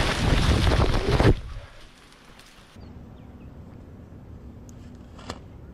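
Loud wind noise buffeting the microphone during flight, cut off abruptly about a second in, followed by a much quieter steady outdoor background.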